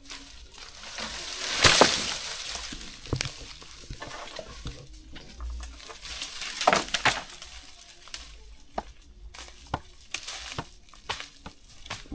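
Dry leaves and brush rustling and crackling, with many small twig snaps, as people push through undergrowth. There are two louder rushes of rustling, about two seconds in and again about seven seconds in.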